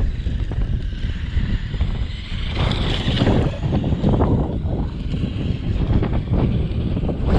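Heavy wind buffeting the microphone, over a Traxxas brushless RC monster truck running on gravel, which grows louder and brighter about three seconds in.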